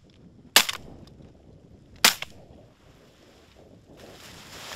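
Two shotgun shots about a second and a half apart, each sharp and trailing off briefly.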